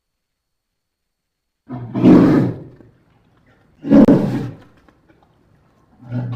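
Polar bear giving three loud, gruff growls, each about a second long and about two seconds apart, the first beginning about two seconds in.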